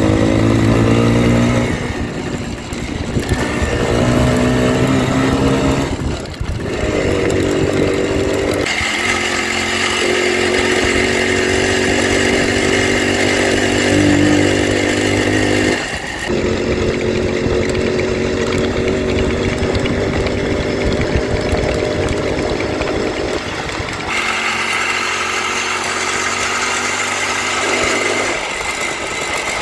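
Minsk motorcycle's single-cylinder two-stroke engine running under way, its pitch stepping up and down several times with short dips in between.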